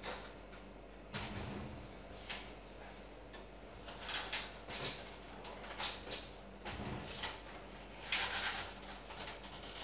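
A full-tower PC case being pushed, rocked and tilted on a kitchen countertop: irregular scrapes and shuffles, with a dull knock about a second in and another later on.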